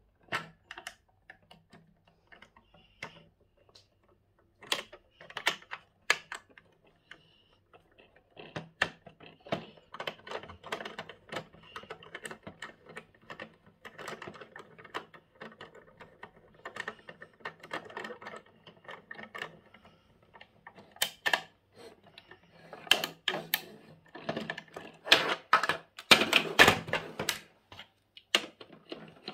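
Plastic toy screwdriver turning plastic bolts in a toy loader's wheel hubs: irregular clicking and scraping of plastic on plastic. Near the end, a louder clatter of plastic parts knocking on the tabletop.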